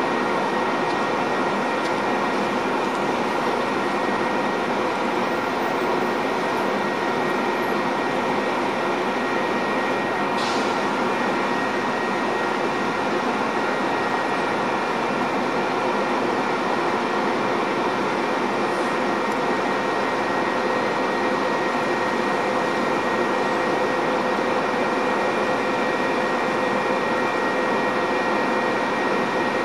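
Steady mechanical drone and hum of a Metra diesel commuter train of bilevel cars at the platform, with several steady tones held throughout and no clatter of wheels over rail joints.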